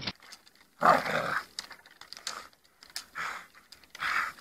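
A dog vocalizing in about four short calls, the first about a second in the loudest.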